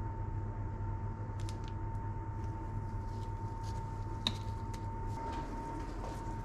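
A steady low hum and a faint steady high tone from the room, with light plastic clicks as a squeeze bottle of chocolate sauce is handled. One sharp plastic snap comes about four seconds in as the bottle's flip-top cap is pressed shut.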